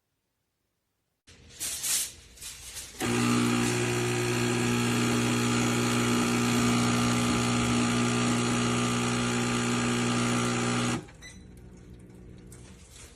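Espresso machine pump running with a steady, even hum for about eight seconds, after a few short irregular sounds. It stops abruptly and leaves a fainter sound behind.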